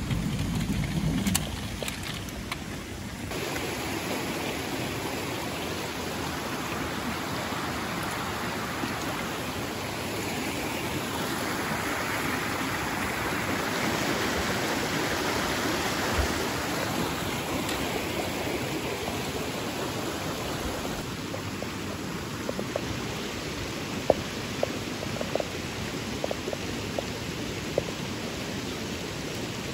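Small rocky stream rushing and splashing over stones, a steady rush of water, with a few short clicks in the last several seconds.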